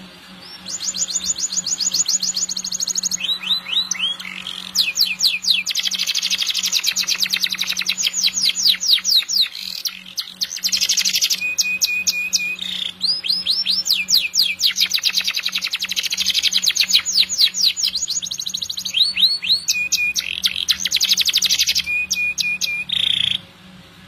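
Domestic canary singing a long, continuous song of fast trills and rapid runs of repeated high notes. The song starts about a second in, has a few brief pauses, and stops shortly before the end.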